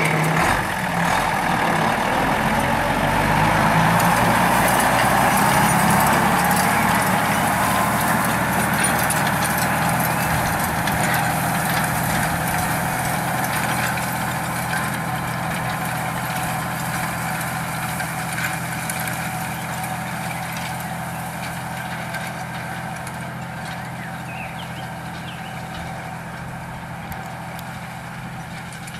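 Diesel engine of an old Unimog running steadily as it pulls a rotary hay tedder through the hay, growing gradually fainter as the vehicle drives away.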